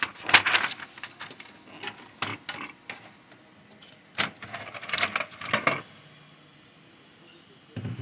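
Plastic clicks, knocks and clatter as an HP LaserJet P1108 laser printer's top cover is opened and its toner cartridge is pulled out, with a burst of clatter about four to six seconds in. A single knock near the end as the cartridge is set down.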